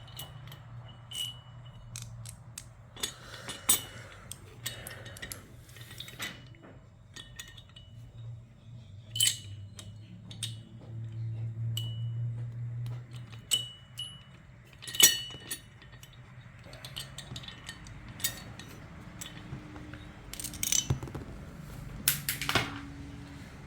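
Small metal mounting hardware (washers, a spacer and a bolt) clinking and tapping as it is handled and fitted into a light bracket, with scattered sharp clinks, several of which ring briefly. A steady low hum runs underneath.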